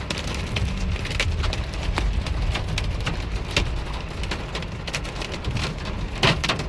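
Hailstones pelting a vehicle's body and glass in dense, irregular sharp hits, with a steady low rumble from the moving vehicle underneath; one louder hit near the end.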